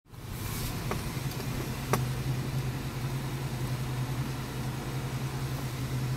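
Nissan car's engine idling steadily, a low hum heard from inside the cabin. Two light clicks at about one and two seconds in, the second louder.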